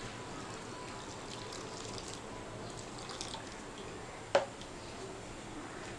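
Water pouring in a thin stream into a glass bowl of dry gram-flour batter mix. A single sharp click sounds a little over four seconds in.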